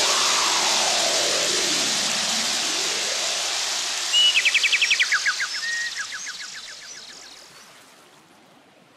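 A songbird's rapid trill about four seconds in, lasting nearly two seconds and dropping to a lower pitch partway through, over a steady rushing noise that fades away over the last few seconds.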